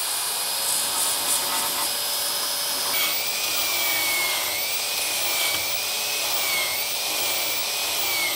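Electric belt file (narrow-belt power sander) running and grinding into fiberglass laminate: a steady grinding rasp over a motor whine. About three seconds in, the whine drops slightly and then wavers up and down.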